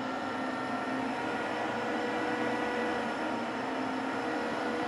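Steady electrical hum and whine from a powered-up inverter welding machine under test, with several steady tones; one tone shifts slightly higher about a second in.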